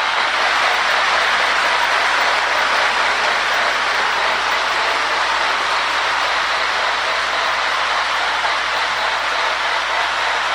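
Lionel MPC Berkshire O-gauge model steam locomotive running on its track: a steady rushing hiss from its replacement steam-sound board mixed with motor and wheel noise.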